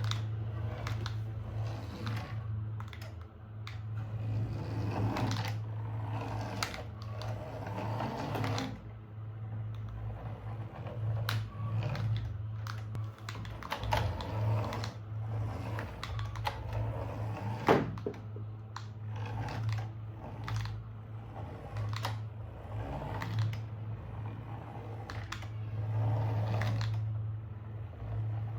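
Plastic toy parts and packaging being handled, making irregular clicks and rustles over a steady low hum, with one sharper click a little past the middle.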